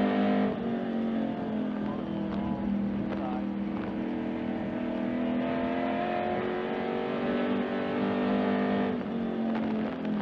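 Race car engine heard from inside the cockpit at racing speed on an oval. The note drops about half a second in as the driver lifts for a turn, climbs again under throttle through the middle, and drops once more near the end.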